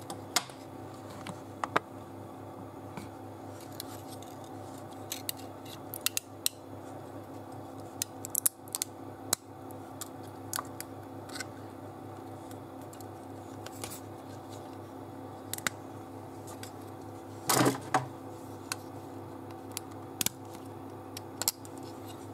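Irregular small plastic clicks and snaps as bits of brim and stringing are picked off a freshly 3D-printed plastic case by hand, the loudest cluster near the end, over a steady low hum.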